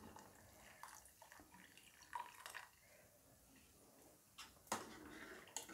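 Faint pouring and dripping of milk into a pot of simmering wheat-rava payasam. A few light clicks come near the end.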